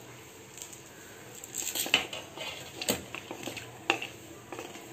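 Mustard seeds crackling in hot oil in a metal kadai, with a wooden spatula stirring and knocking against the pan. There are scattered sharp clicks and taps, about one a second from about a second and a half in, over a faint hiss.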